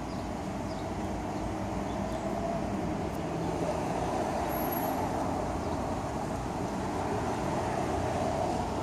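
Steady rumble of a running car engine close by, with road hiss, growing slightly louder through the second half.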